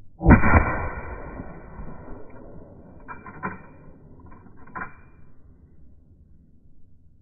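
A 12-gauge Fedarm FRN pump-action shotgun fires one loud shot that dies away over about two seconds. A few sharp clacks follow around three seconds and again near five seconds in, the pump being racked to chamber the next shell.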